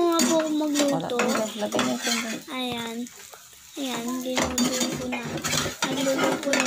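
Metal spatula scraping and clinking against a small frying pan as a pancake is turned in oil, in many short clicks and scrapes. A high voice with long, drawn-out tones sounds over it, fading about three seconds in and returning a second later.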